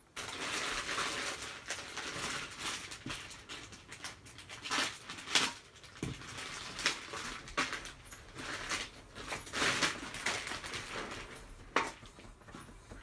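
Plastic packaging crinkling and rustling as the metal parts of a laminate floor cutter are unwrapped and handled, with sharp clicks and knocks of the metal parts throughout.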